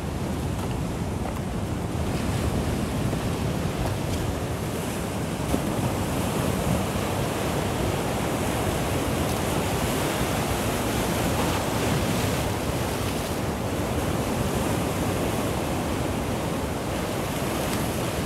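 Ocean surf washing in and breaking over shoreline rocks, a steady rushing wash, with wind buffeting the microphone.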